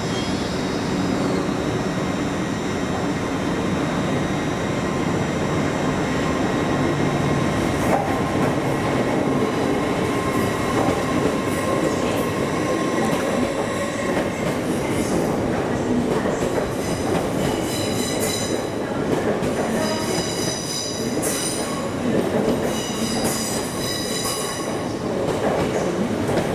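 A passenger train moving through the station platforms, with a steady rumble and a faint steady whine. From about two-thirds of the way in there is a series of high-pitched squeals that come and go.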